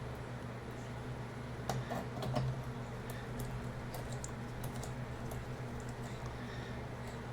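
Light clicks and ticks of a screwdriver and small screws being worked into the metal back casing of a mini PC, with a cluster of louder clicks about two seconds in and scattered fainter ticks after. A steady low hum runs underneath.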